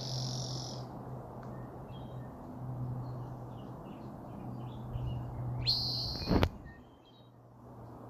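A bird calling: a loud high call right at the start and another about six seconds in, each sweeping up then held, with soft short chirps in between. A sharp knock comes just after the second call, over a steady low hum.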